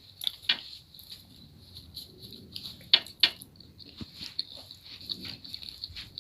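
Close-miked chewing and mouth sounds of someone eating a meal of rice, curry and meat, with scattered sharp clicks and smacks.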